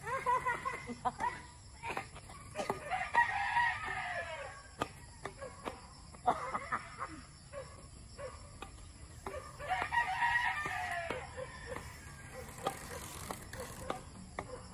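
A rooster crowing repeatedly, each crow a long call that rises and falls over about two seconds. Sharp, scattered clicks of badminton rackets striking a shuttlecock run under it.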